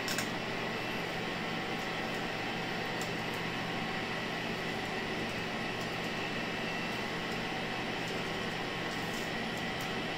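Steady whir of rack-mounted server cooling fans, with a low hum and a faint constant high whine over it.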